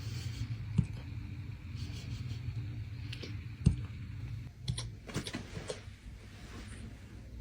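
Puppy hiccuping: several short, sharp hics at irregular intervals, the loudest about halfway through, over a low steady hum.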